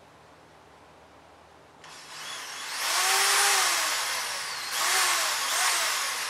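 Power drill boring a pilot hole through a mud flap, starting about two seconds in. Two trigger pulls, the motor speeding up and slowing down each time.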